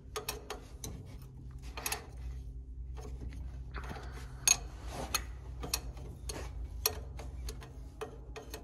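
A wrench working on the tractor's diesel injector fuel-line fittings: irregular metallic clicks and taps, one to three a second, over a steady low hum.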